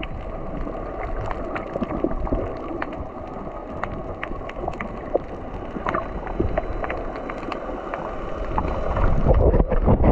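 Water sloshing and bubbling around a snorkeler's camera, muffled, with many scattered sharp clicks throughout; it gets louder and rougher about nine seconds in.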